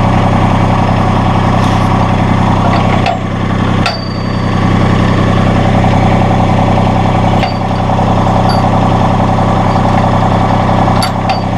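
Massey Ferguson GC1720 sub-compact tractor's three-cylinder diesel engine idling steadily. A few sharp metallic clicks cut through it, one ringing briefly about four seconds in, and two more close together near the end.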